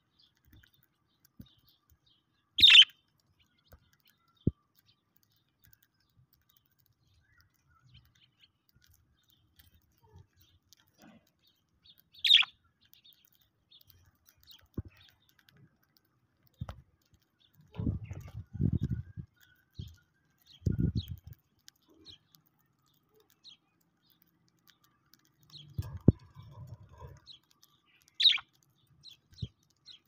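Budgerigars chirping: three short, sharp chirps spaced far apart. Between them come faint clicks of beaks husking seed, and a few low rumbling bumps past the middle.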